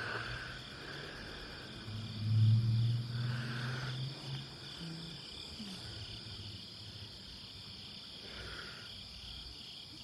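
Steady insect chorus of rapid, even pulsing chirps. About two seconds in, a low rumble rises over it for a couple of seconds and then fades.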